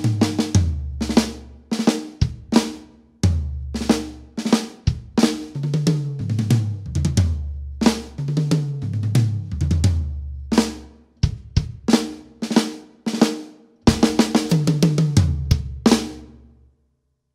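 Acoustic drum kit played loud and unaccompanied: snare drum rudiments with drags and ruffs, bass drum, and tom runs that step down in pitch. The playing stops about 16 seconds in with a last hit that dies away to silence.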